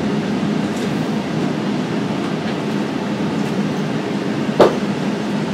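Cabin noise of a cable-hauled Doppelmayr Cable Liner people-mover car pulling into a station, a steady low hum. A single sharp clunk comes about four and a half seconds in.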